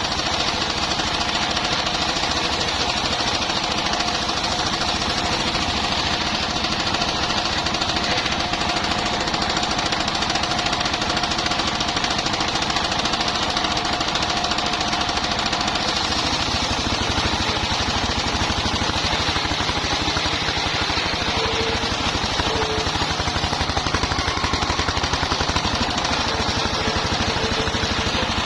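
Engine-driven circular sawmill running, its engine firing in a rapid steady pulse. A steady whine, typical of the blade cutting timber, fades about halfway through, where the engine note also changes.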